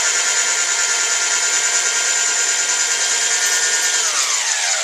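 Electric drill running steadily, spinning a mandrel that winds wire into a tight coil for jump rings. Its motor whine holds level, then drops in pitch near the end as the drill slows.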